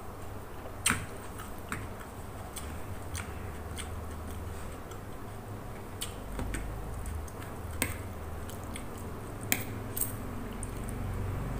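Close chewing of noodle soup, with a spoon and fork clinking against the bowl in short sharp clicks, about eight in all and loudest near the end while the noodles are stirred.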